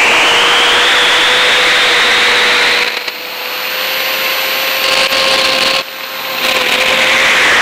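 FPV drone motors and propellers running hard: a loud whining rush whose pitch climbs over the first two seconds and then holds. The level drops briefly about three seconds in and again around six seconds, as the throttle eases off and comes back.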